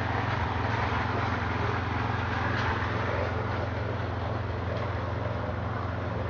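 Small petrol engine running steadily at constant speed, a continuous low drone.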